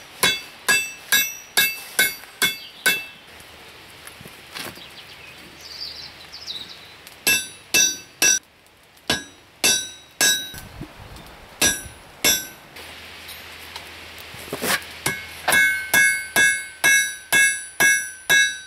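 Hand hammer striking a hot steel coat-hook bar on an anvil, each blow ringing. The blows come in runs of about two a second, thin out with pauses in the middle, then pick up faster near the end.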